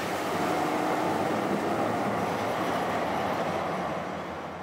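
A city tram rolling past on street rails, its running noise swelling and then fading away near the end.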